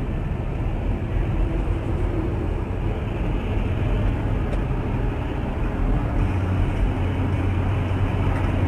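A car driving, with a steady rumble of engine and road noise.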